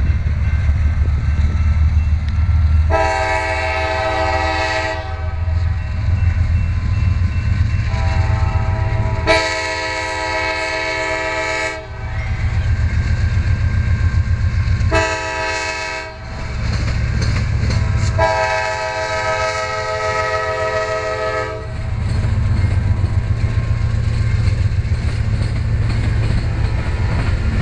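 CSX diesel freight locomotive's air horn sounding the grade-crossing signal: two long blasts, a short one, then a long one. Underneath runs the low rumble of the locomotives and the wheels on the rails, which carries on after the horn stops as the engines pass close by.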